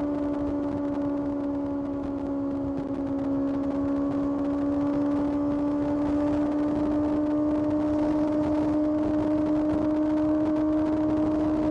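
Kawasaki ZX6R 636 cc inline-four engine under way at high, steady revs. Its pitch dips slightly about two to three seconds in, then climbs gently.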